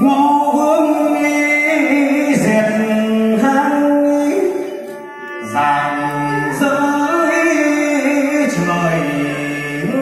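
Chèo opera singing: a singer holds long notes that step up and down in pitch over instrumental accompaniment.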